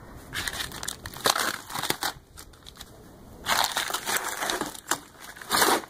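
Vinyl sheet and tape patch being peeled off the truck's window opening and crumpled, giving irregular bursts of crinkling and tearing. The sound eases off around the middle, then comes back louder for a longer stretch.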